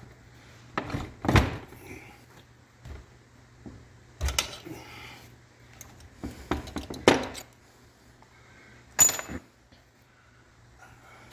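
Metal tools and parts clanking and clinking in four separate bursts; the last, about nine seconds in, ends in a short high metallic ring. A steady low hum runs underneath.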